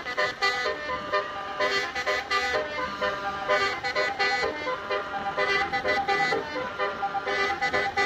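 Indonesian "telolet" musical bus horn (Basuri-style multi-tone air horn) playing a melody. Several horn tones sound together and step to new pitches every fraction of a second throughout.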